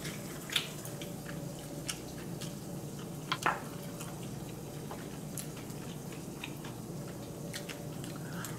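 Light clicks and taps of chopsticks and a small cup during eating, a few louder ticks among them, over a steady low room hum.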